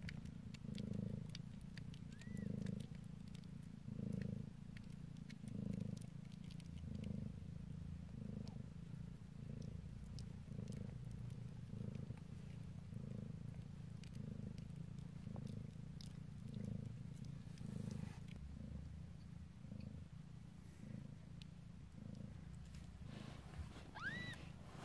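Mother cat purring steadily in regular swells, about one every second and a half with her breathing, while she is still in labour and nursing her newborn kittens.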